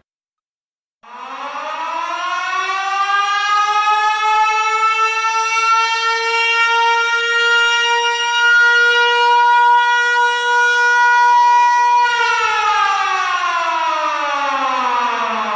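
A siren sound effect: after a second of silence it winds up slowly in pitch, holds one steady tone, and from about twelve seconds in winds down steadily.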